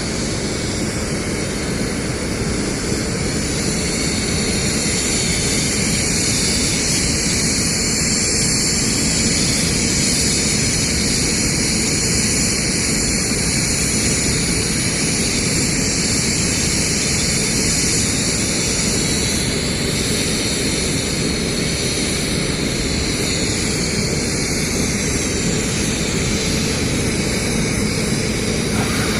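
Steady, unbroken drone of running machinery with a hiss over it; it holds at the same level throughout.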